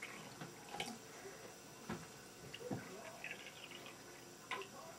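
Tap water poured from a glass measuring cup into small cups: a faint trickle with a few light knocks.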